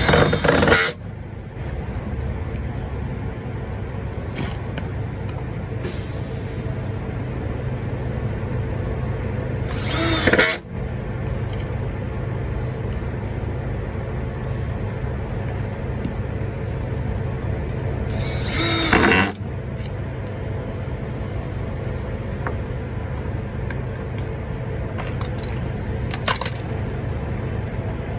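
Drill driving small screws to fasten a mud flap: three short bursts, each under a second, about ten seconds apart, over a steady low hum.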